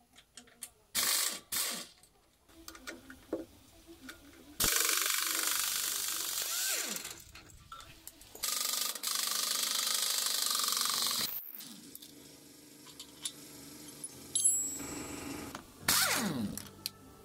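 Cordless power driver with a socket extension running in several bursts to undo engine bolts. The longest run lasts several seconds mid-way, with a brief break. The last burst winds down in pitch as the motor stops.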